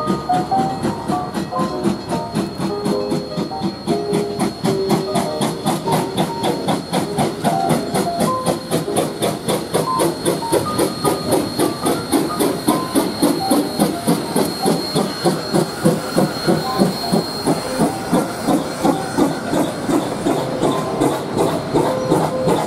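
Coal-fired narrow-gauge steam locomotive RGS 20 passing slowly with its passenger cars: a steady hiss of steam over a fast, even beat of about four strokes a second, with the cars' wheels rolling by.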